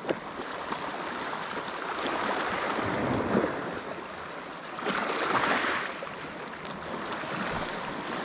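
Small sea waves washing against shoreline rocks, with one louder surge about five seconds in.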